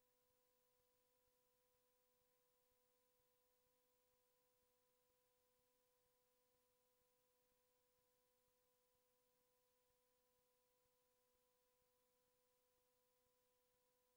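Near silence, with a very faint steady hum made of a few pure tones.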